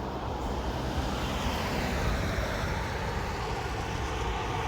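Road traffic passing on the main road: tyre and engine noise swelling as a vehicle goes by, peaking about halfway through.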